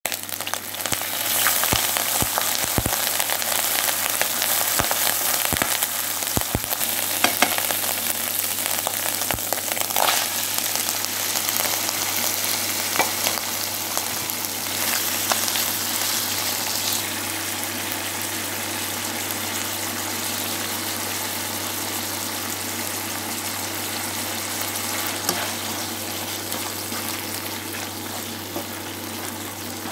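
Chicken hearts and paste sizzling in hot oil in a granite-coated frying pan, with the spatula knocking and scraping against the pan as they are stirred. The sizzle is strongest in the first half and eases somewhat later on. A steady low hum runs underneath.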